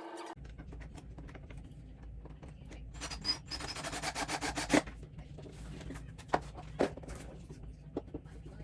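Hands handling flat-pack lamp parts: rubbing and scraping, with a quick run of scratchy strokes about halfway through, then a few sharp clicks as parts are fitted together.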